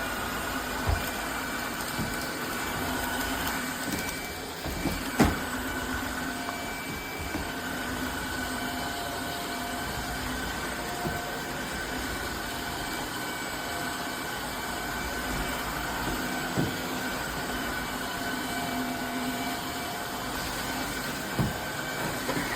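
Tineco Floor ONE S5 cordless wet-dry vacuum-mop running steadily, a high steady whine over the motor's noise. A few sharp knocks, the loudest about five seconds in.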